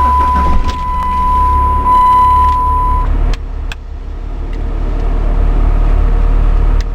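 2002 Chrysler PT Cruiser's engine running just after being started, with a steady high beep sounding over it for the first three seconds or so, then two clicks and the engine sound slowly building.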